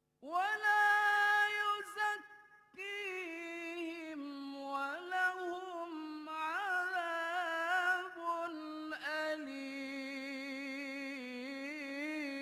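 A male qari reciting the Quran in the melodic tilawah style through a microphone: long held notes with wavering melismatic ornaments, with a short break about two seconds in.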